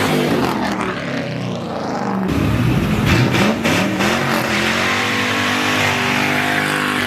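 Lamborghini Huracán's V10 engine revving and accelerating away. Its pitch sinks over the first couple of seconds, then climbs steadily through the second half.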